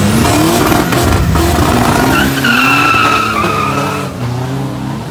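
Modified pickup trucks launching off a drag-strip start line: engines revving with rising pitch, then from about two seconds in a steady, high tyre squeal lasting a couple of seconds as the tyres spin.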